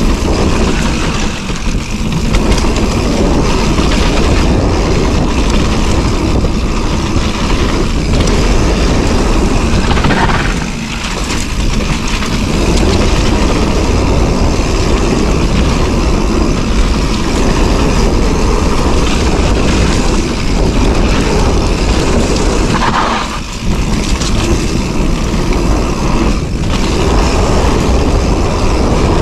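Wind rushing over the microphone mixed with a mountain bike's tyres rolling on a dirt trail at speed. The noise is loud and steady, easing briefly about ten and twenty-three seconds in.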